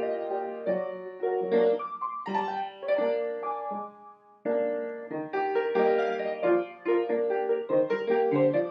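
Piano music with quick, separate notes, breaking off briefly about four seconds in before carrying on.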